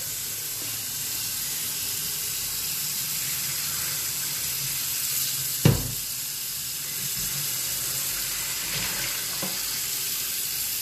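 Kitchen tap running into a stainless steel sink while pasta and its cooking water are poured from a pot into a plastic colander: a steady rush of water. A single sharp knock a little past the middle.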